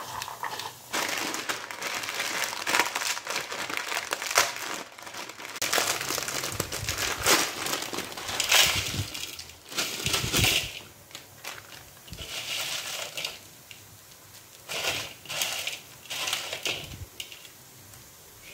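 Plastic instant-noodle wrappers crinkling as the packets are handled and emptied, with dry noodle blocks knocking into a plastic bowl near the middle. At the start a hand tosses chopped green beans in a bowl.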